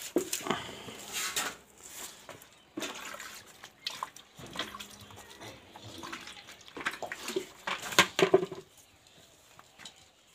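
Cow being milked by hand: short jets of milk squirting into a plastic bucket in irregular spurts, loudest about eight seconds in.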